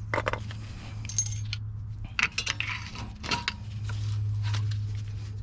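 Steel brake pads and their spring retainer clips clinking and rattling against the brake caliper bracket as they are handled and seated, a scatter of short metallic clicks over a steady low hum.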